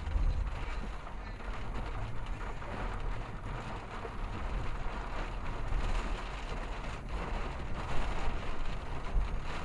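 Steady low rumble and hiss of wind and rain, mixed with vehicle noise.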